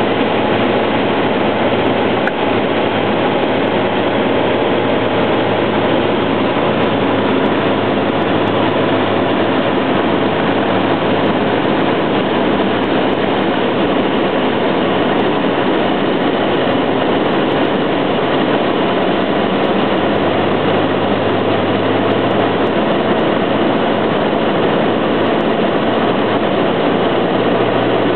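Cessna 172 single-engine light aircraft's engine and propeller giving a loud, steady drone with no change in power.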